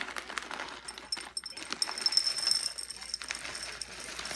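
Granola poured from a plastic bag into a ceramic bowl: a dense rattle of small clusters hitting the bowl, loudest about two seconds in.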